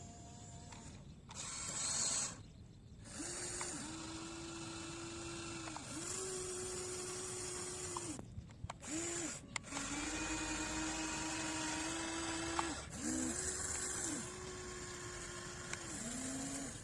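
Radio-controlled excavator's electric motors whining in a series of separate runs of one to three seconds, the pitch sagging briefly as each run starts and stops, with a few sharp clicks between them.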